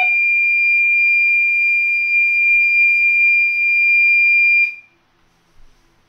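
Fire alarm system sounding a steady, high-pitched electronic alarm tone during a fire test, cutting off suddenly about four and a half seconds in.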